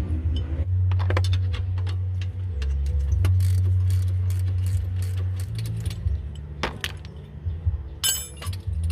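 Metal tools clinking and rattling against a car's front suspension fasteners, many separate clicks, with a steady low hum underneath. A short rapid rattle comes near the end.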